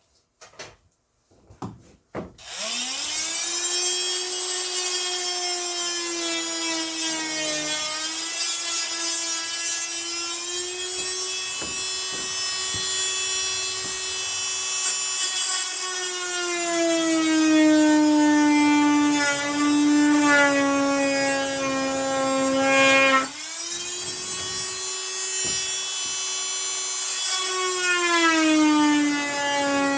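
Dremel rotary tool starting up about two seconds in and running with a high whine while cutting a broken phone holder. Its pitch sags and recovers as it is pressed into the work. It stops briefly near the three-quarter mark and spins up again.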